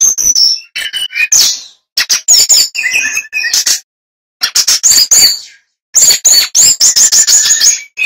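Male brown-chested jungle flycatcher singing loudly and clearly. It sings a string of short, varied phrases of chirps, trills and whistles, separated by brief pauses, with a fast run of repeated notes near the end.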